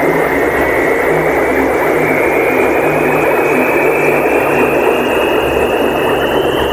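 Dark ambient electronic drone: a dense, steady rushing noise over low droning tones, with a thin high tone slowly rising in pitch.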